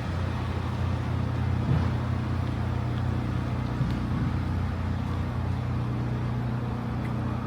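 Steady low hum and rumble from riding a small electric bike along the road, even throughout with no sudden events.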